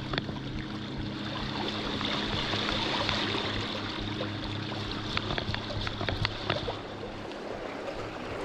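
Sea water washing and trickling among shore rocks, with a steady low hum underneath and a few light clicks in the second half.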